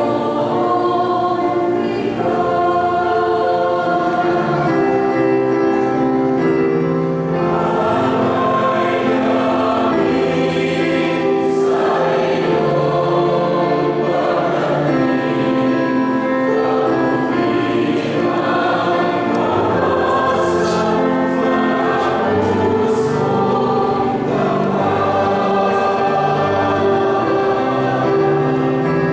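Church choir singing a hymn in Tagalog, the notes held and steady without a break.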